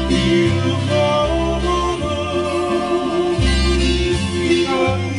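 Live Hawaiian song: a male voice singing over plucked acoustic strings, with a deep bass line that steps to a new note every second or so.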